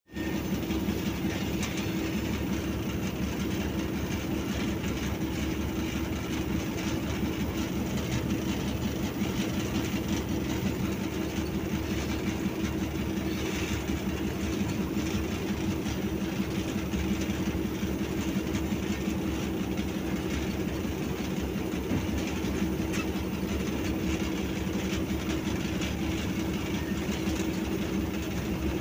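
The cab of a PHA-20 diesel locomotive running at speed: a steady engine drone with a constant hum, under the rumble and clatter of the wheels on the track.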